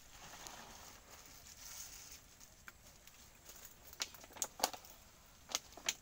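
Nipa palm sap poured from a plastic bottle into a plastic jug, a soft trickling splash for the first two seconds. Then several sharp crinkles and clicks of a plastic bag and bottle being handled, in the last two seconds.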